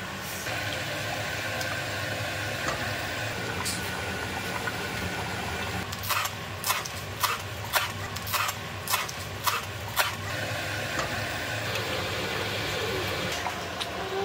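Chef's knife chopping parsley on a cutting board: about eight sharp chops, roughly two a second, starting about six seconds in. A steady low hum runs underneath.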